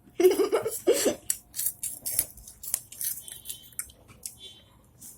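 A brief burst of voice, then a run of soft wet clicks and smacks of someone eating straight from a plate with the mouth, hands not used.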